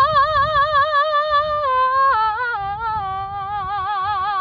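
A woman singing long, high, operatic notes without accompaniment, with a wide vibrato. The pitch steps down about two seconds in and again about a second later.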